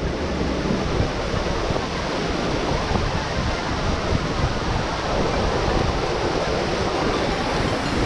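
Steady rushing of the Verzasca river's water flowing over granite boulders, an even noise that does not change.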